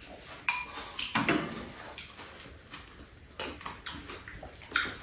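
Metal spoons clinking against ceramic bowls during a meal: a few light, separate clinks, the first about half a second in ringing briefly.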